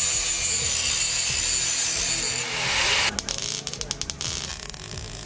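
Welding on a steel frame: a steady harsh hiss for about three seconds, then a stretch of irregular sputtering crackle, settling into a steadier hiss near the end.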